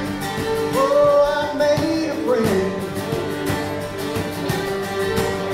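Live acoustic band playing an instrumental break between sung lines: strummed acoustic guitars under a fiddle melody that slides in pitch about two seconds in.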